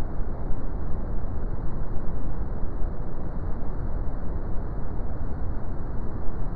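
Brown noise: a steady, even rumbling hiss with its weight in the low end and little above about 2 kHz.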